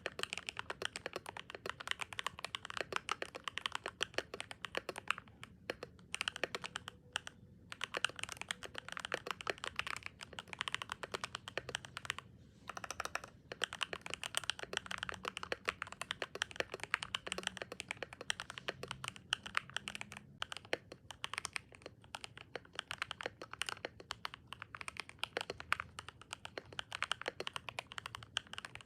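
Fast, continuous typing on a Royal Kludge RK100 mechanical keyboard fitted with Gateron Pro Silver switches and quieted by a tape mod and case foam: a dense stream of key clacks with a few brief pauses.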